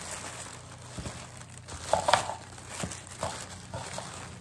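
Packaging crinkling and rustling as small items are unwrapped and handled, with a few light taps. It is loudest about two seconds in.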